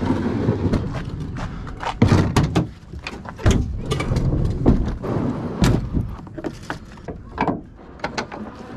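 A plastic fishing kayak being slid into a pickup truck's bed: several hollow thuds as the hull knocks against the plastic bed liner, with scraping between them.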